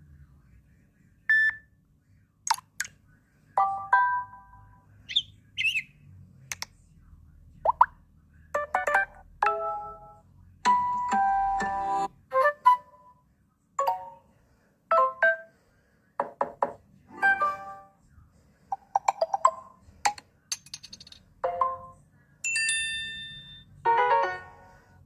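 Samsung Galaxy Note 5 notification tones played one after another: a string of short chimes and jingles, each one different, with brief gaps between them.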